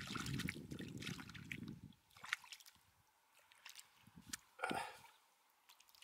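Water sloshing and splashing close by for about two seconds, then only a few small drips and splashes.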